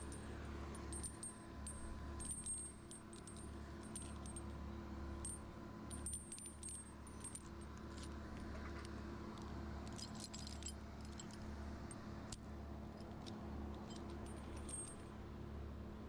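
Metal climbing hardware, carabiners and clips on a tree climber's harness, clinking and jingling in small scattered clicks as he moves, over a low gusting wind rumble and a faint steady hum.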